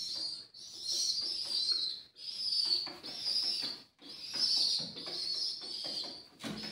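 Young pigeons (squeakers) begging for food: a run of high-pitched squealing, whistle-like calls, about seven in a row with short gaps, mixed with some flapping of wings.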